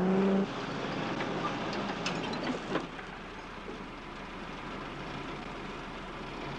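Motor vehicle engine running steadily, with a couple of faint clicks and knocks about two to three seconds in.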